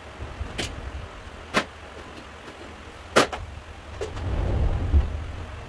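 Metal parts and tools being handled on the workbench while a plate is bolted into place: three sharp knocks in the first three seconds, then a low rumble about four seconds in with one more knock in it.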